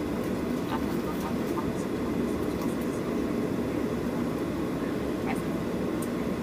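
Cabin noise inside a Boeing 737-700 by the wing: the CFM56-7B jet engines and airframe make a steady low rumble, with a few faint light rattles now and then.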